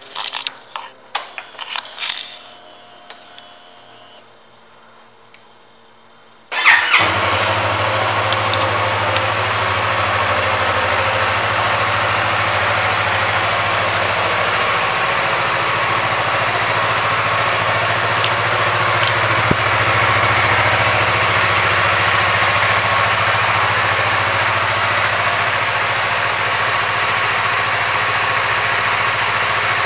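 A few clicks, then about six and a half seconds in the Yamaha YZF-R3's 321 cc parallel-twin engine starts and settles into a steady idle.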